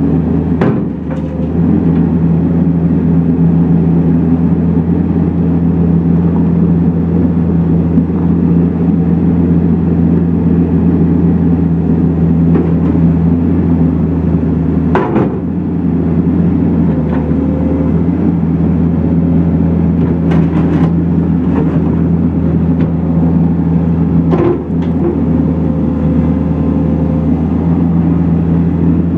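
New Holland L170 skid steer loader's diesel engine running steadily, with a few sharp knocks at intervals.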